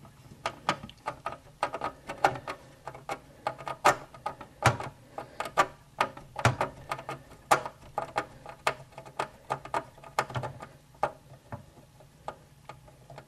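Screwdriver backing a long screw out of the plastic back panel of a Brother SE400 embroidery machine: a run of irregular sharp clicks and ticks, a few a second, that dies away near the end.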